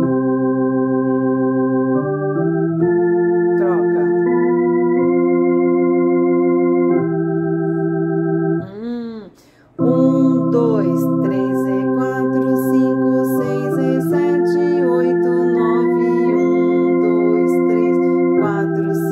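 Electronic home organ playing the slow, sustained chords of a hymn's left-hand part on the lower manual, the chords changing every second or two. It breaks off briefly about nine seconds in, and the same passage is played through again.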